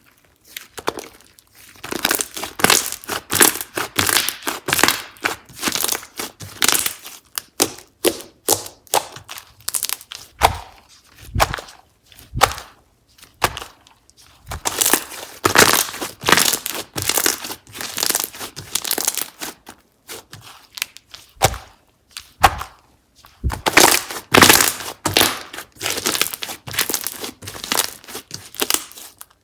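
Textured slime being squeezed, stretched and pressed by hand, giving dense runs of crackling, crinkly pops and clicks, broken by a few short pauses.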